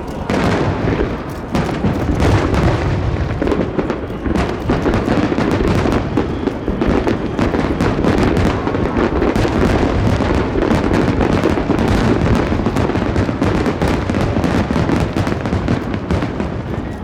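Aerial fireworks display: a dense, continuous barrage of shell bursts, bangs and crackle.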